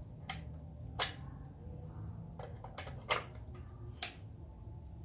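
A handful of short, sharp clicks at irregular spacing, the loudest about a second in, over a low steady background noise.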